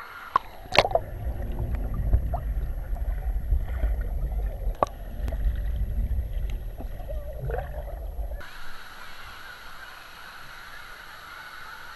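Pool water sloshing and gurgling against a camera held at the waterline, dipping underwater, with a few sharp splashes. After about eight seconds it cuts to a quieter steady hiss of waterpark background noise.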